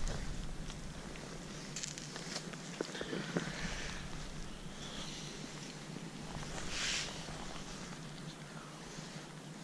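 Faint, steady low drone of a passing lifeboat's engine across the water, with scattered light ticks of rain on the camera housing and a brief rush of noise about seven seconds in.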